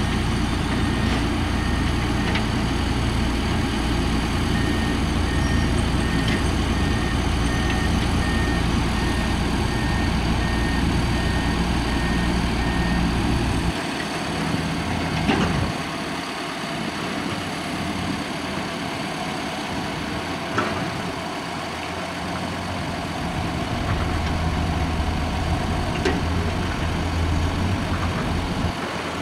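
Heavy diesel construction machinery running with a deep engine rumble, while a reversing alarm beeps about twice a second for several seconds. About halfway through the deep rumble drops away, leaving a lighter engine sound with a few knocks, and it swells again near the end.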